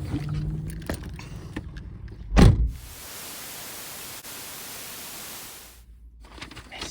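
A low engine-like hum with a few light clicks, then a single heavy thunk about two and a half seconds in, like a car door shutting. It is followed by about three seconds of even hiss that cuts off suddenly.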